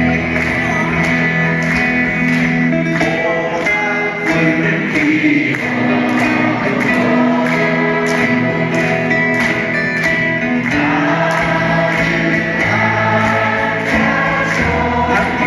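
A large audience singing along in unison with a live band led by guitar, heard as a loud, steady sing-along through a phone's microphone.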